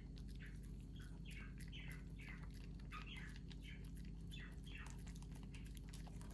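Faint, high chirping calls, each falling in pitch, repeating about twice a second over a low steady hum.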